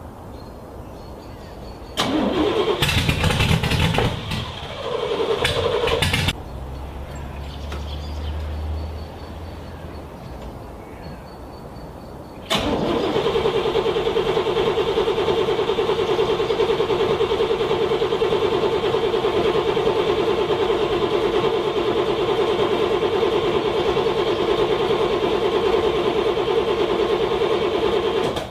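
A car's starter cranking a cold engine. It gives a short loud burst about two seconds in, then a long steady cranking of some fifteen seconds from about halfway that stops abruptly without the engine catching.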